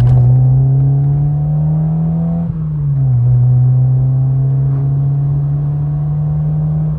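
Mazda MX-5 Mk2.5 four-cylinder engine heard through an aftermarket Malian rear silencer, rising in revs under acceleration. About two and a half seconds in the revs drop with a gear change, and it then pulls steadily in the next gear. The exhaust still has a blow that the owner means to sort out.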